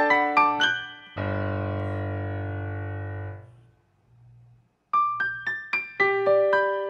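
Background piano music: quick notes, then a held chord about a second in that fades away, a short pause, and the quick piano tune starting again near the end.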